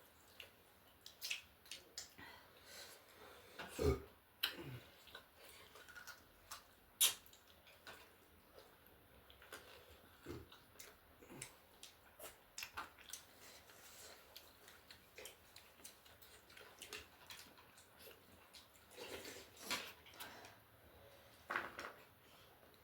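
Close-up eating sounds of a mukbang: scattered soft clicks and smacks of chewing noodle soup and chicken wings, with an occasional sharper clink of utensils on a bowl.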